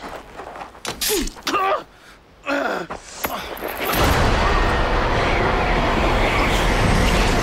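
A man's short gasps and grunts, then from about four seconds in a loud, sustained rushing rumble: the dramatic sound effect of a Confessor's power taking hold of a man she grips by the throat.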